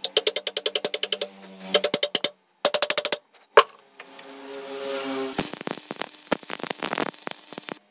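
Rapid light hammer taps on a steel crowbar clamped in a vise, in three short bursts of about ten strikes a second, the bar ringing under each burst. Then a crackling hiss with scattered clicks for the last few seconds.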